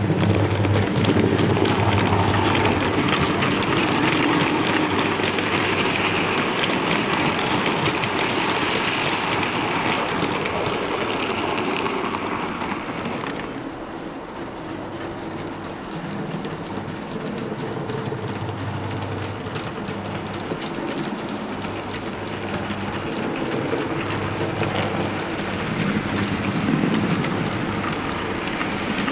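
OO gauge model GWR 16XX pannier tank locomotive and its mixed freight wagons running on model railway track: a steady rattling clatter of small wheels over the rails with a low motor hum. The sound turns quieter and duller about halfway through.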